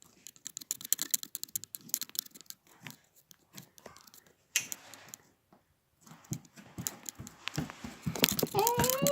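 Slime being squeezed and worked by hand, crackling with many small clicks and pops. Near the end a short rising voice-like sound is heard.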